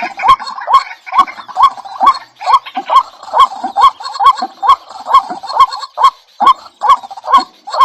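A bird calling over and over in short, loud calls, about two a second, each with a sharp click.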